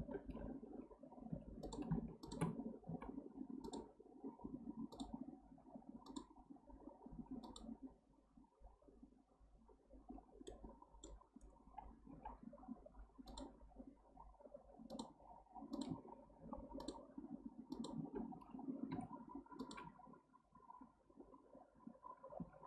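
Faint, irregular clicks of a computer mouse and keyboard, roughly one a second, as the user clicks and presses keys while working in a 3D modelling program.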